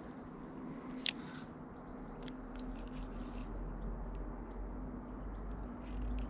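Handling sounds from a spinning rod and reel: one sharp click about a second in, then faint scattered ticks over a low steady rumble.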